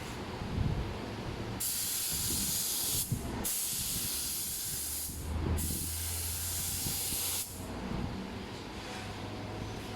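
Spray hissing in three passes of about two seconds each, with short breaks between them: a coating being sprayed onto a headlamp lens during its restoration.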